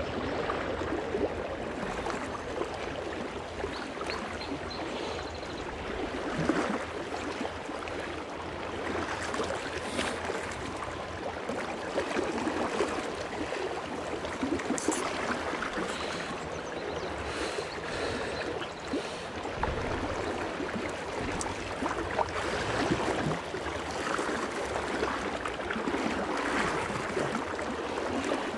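Fast, shallow river water rushing over a rocky bed: a steady wash of flowing current.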